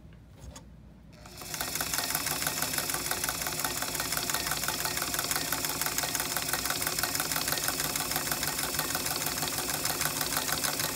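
Singer Model 66-16 sewing machine running steadily and stitching fabric at a short stitch length: a rapid, even clatter of needle strokes. It starts about a second and a half in.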